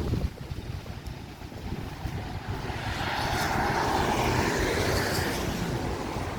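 Wind rumbling on the microphone, with a louder rushing noise that swells and fades in the second half, like something passing by.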